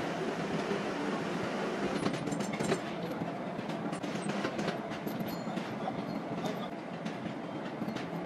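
Factory machinery running steadily, a continuous mechanical rumble and clatter with scattered clicks and knocks.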